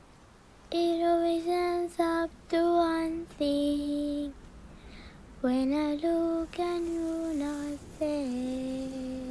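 A child's voice singing a slow solo melody in long held notes, with no accompaniment, pausing briefly about halfway through.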